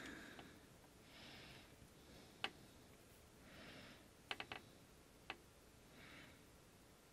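Near silence with soft breaths every couple of seconds close to the microphone, and a few small sharp clicks: a single one, a quick run of three, then one more.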